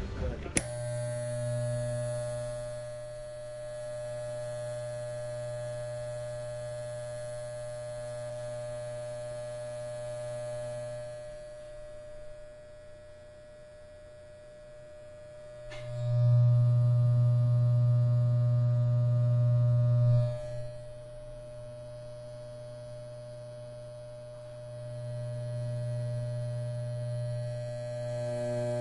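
Electric hair clippers buzzing steadily. The buzz swells much louder for about four seconds past the middle, then drops back, and grows louder again near the end.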